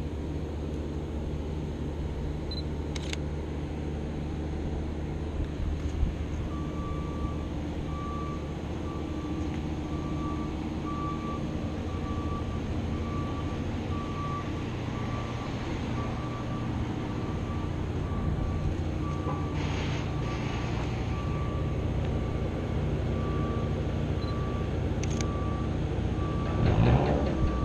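Street traffic with a steady low engine drone, and from about six seconds in a repeating electronic beep. A few sharp camera shutter clicks, and the traffic noise swells near the end as a vehicle passes.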